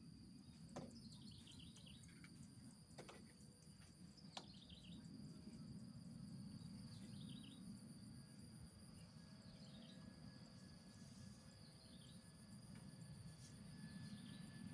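Faint outdoor ambience: insects keep up a steady high-pitched drone, and a bird gives a short falling chirp about every two seconds, about six times. Underneath runs a steady low rumble, with a few soft clicks.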